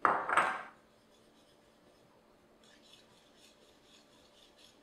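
Dry spice rub of salt, black pepper and garlic powder being mixed in a ceramic bowl: one short, loud scraping rub at the start, then faint, light, rapid ticking as the seasoning is handled over the meat.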